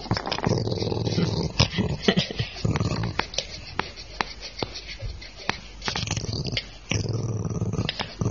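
A dog's low warning growl, an irritated dog growling at another dog. It comes in two long bouts, one over the first two and a half seconds and another starting about seven seconds in, with a run of sharp clicks in between.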